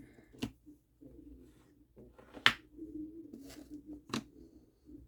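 A few sharp small clicks and taps from handling nail polish and stamping tools at a worktable, the loudest about halfway through.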